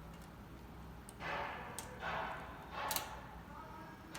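Plastic magnetic building tiles being handled and snapped together: two sharp clicks about a second apart, with softer scuffing of the pieces in between.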